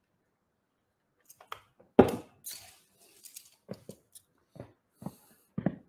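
A man drinking from a drinks can: a sharp knock about two seconds in, then scattered short breaths, mouth noises and small handling sounds.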